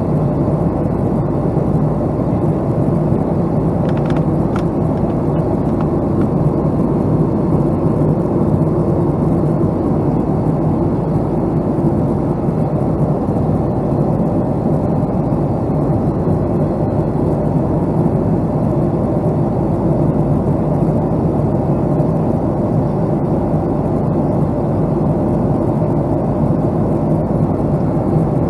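Steady drone of a Boeing 757-200 heard from inside the passenger cabin, with engine and airflow noise that stays even throughout.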